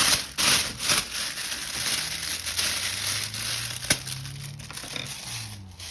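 Plastic gift wrap crinkling and rustling as it is handled, with busier bursts in the first second and a sharp click nearly four seconds in.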